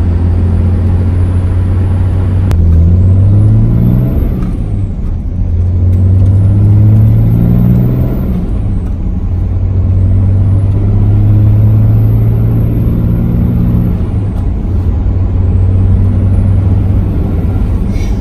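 Cummins turbo-diesel pickup pulling through the gears, heard from inside the cab. A high turbo whistle rises and falls five times over the low engine drone, which climbs in pitch with each pull. The whistle is loud with an S&B cold air intake fitted.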